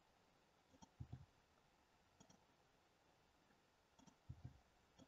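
A handful of faint computer mouse clicks, a second or so apart, over near silence.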